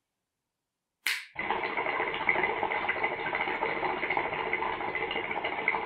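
Water bubbling steadily in the glass vase of a Meduse SeaBlooom hookah as smoke is drawn through the hose, for about four and a half seconds. A short sharp click comes just before the bubbling starts.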